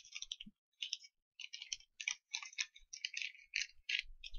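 Light, irregular clicking and scratching from small parts and hand tools being handled, in short clusters throughout.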